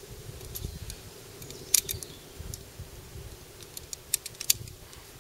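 9 mm blank cartridges being pressed into the magazine of a BBM Bruni GAP blank pistol: a few sharp metallic clicks, the loudest about two seconds in and a quick pair near the end.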